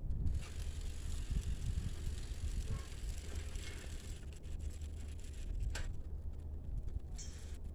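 Bicycle being ridden, its rear freewheel ticking as it coasts, with a sharp click about three-quarters of the way through. Low wind rumble on the microphone runs underneath.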